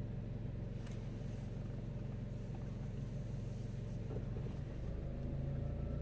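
Car engine idling with a steady low hum, heard from inside the cabin.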